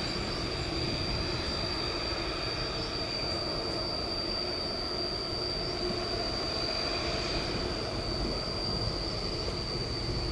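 Boeing 787-9 airliner taxiing, its jet engines at idle giving a steady high whine over a broad, even rumble.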